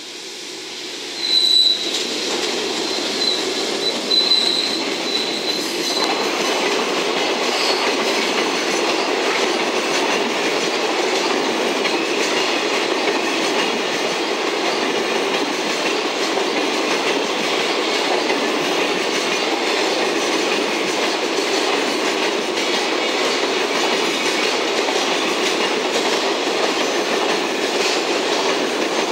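A JR Freight EF210 electric locomotive and a long container train pass close by on curved track. A high wheel squeal flares on and off for the first few seconds as the locomotive comes by. After that comes the steady rumble and clatter of the container wagons rolling past.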